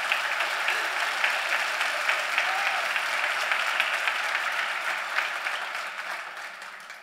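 Large audience applauding, steady and even, then dying away near the end.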